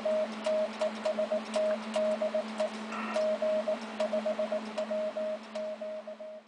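Morse code from a shortwave receiver: a single mid-pitched tone keyed in quick dots and dashes over band hiss. The hiss is broken by crackling static clicks, with a steady low hum underneath.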